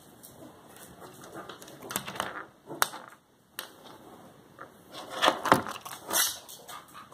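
Cocker spaniel eating cashews: irregular crunching and clicking as it chews, loudest a little past five seconds in.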